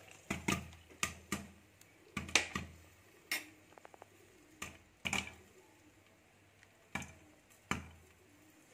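Corn kernels popping in a lidded wok, sparse sharp pops at irregular intervals, about a dozen, as the batch nears the end of popping.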